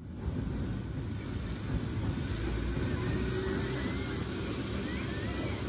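Elevated electric railway train running by with a low rumble, a faint rising motor whine and thin wheel squeals about two to four seconds in.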